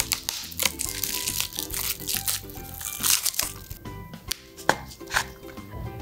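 Background music, with plastic crinkling, tearing and sharp clicks as a juice box's straw wrapper is handled and the straw is readied.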